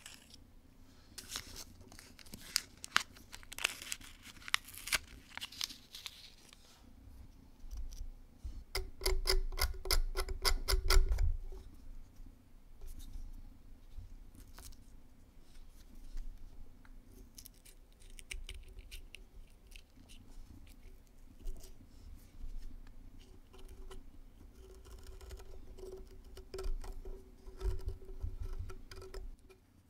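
Hobby knife cutting, scraping and picking at the cardboard tube and paper wrapper of a ground bloom flower firework, with scattered scratches and clicks of paper and card. About nine seconds in comes a fast, even run of scraping strokes, the loudest part.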